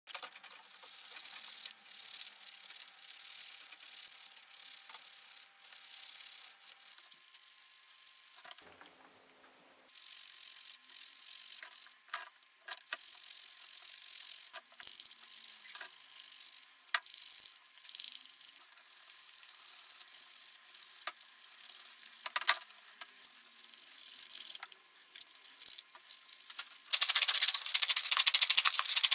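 Small steel toy parts being cleaned by hand: a steady hiss with frequent clicks and rattles of the metal parts, broken by a short pause about nine seconds in.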